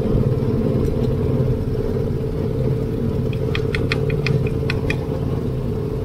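Motorboat engine running steadily, a constant low drone. A quick run of short, high-pitched ticks about three seconds in.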